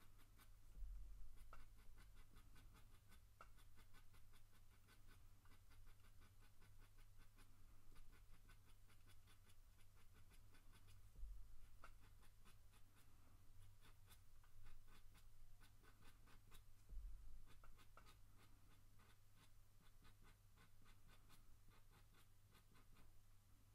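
Coloured pencil scratching faintly on paper in many short, quick strokes as fur is drawn, over a steady low hum. Three soft low bumps come about a second in, near the middle, and about two-thirds of the way through.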